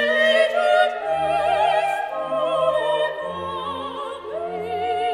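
Background music: an operatic voice sings long notes with wide vibrato over an orchestral accompaniment.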